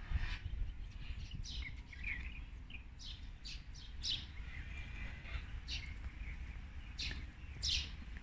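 Small birds chirping: short, sharp calls that drop in pitch, scattered irregularly through, over a steady low rumble.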